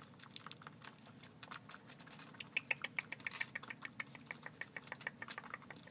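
Baby raccoon eating cat food, chewing with a rapid run of short, sharp clicks and smacks that grow thickest in the middle.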